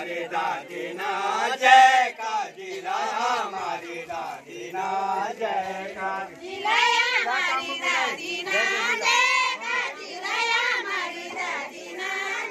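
A group of men and women singing a pahadi folk song together, several voices at once, for the circle dance with linked arms.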